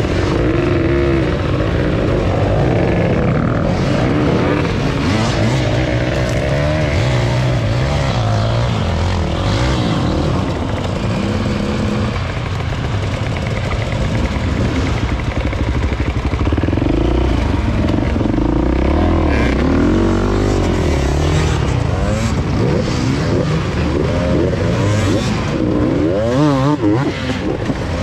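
Off-road dirt bike engines revving hard and unevenly, the pitch rising and falling as the rear wheels spin in loose dirt.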